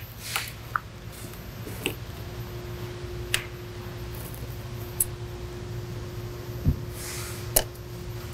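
Light handling noises of hands working picture-hanging wire on a metal picture frame: a few scattered soft clicks and ticks over a low steady hum, with a faint steady tone joining about two seconds in.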